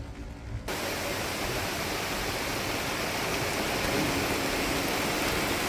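Heavy rain falling, a dense steady hiss that starts abruptly less than a second in.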